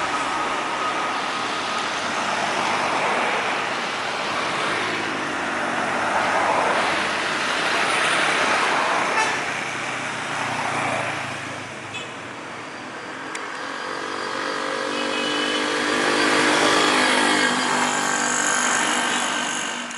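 Bus and road noise throughout, with a Basuri 'telolet' multi-tone bus horn sounding several notes together in the last few seconds.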